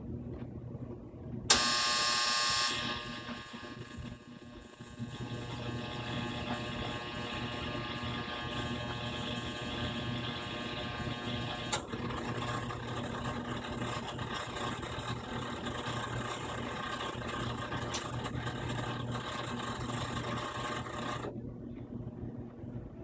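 Maytag Bravos gas dryer running with a steady low hum; about a second and a half in, a loud buzz breaks in, loudest for its first second, and goes on, turning rougher about halfway, until it cuts off near the end. The buzz is the intermittent abnormal noise the owner is reporting from the dryer.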